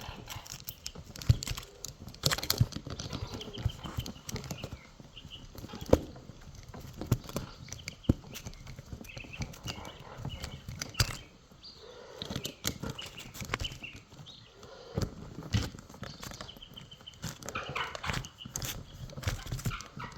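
Irregular clicks and knocks of small tools and metal parts being handled on an RC truck's chassis, with pet birds chirping and calling in the background.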